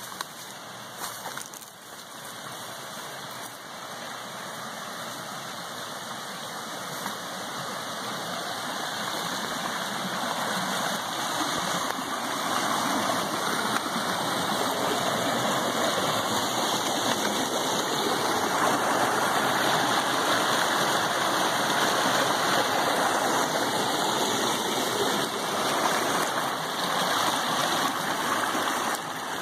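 Small rocky forest stream rushing and splashing over boulders and a little cascade, a steady rush that grows louder over the first ten seconds or so and then holds level.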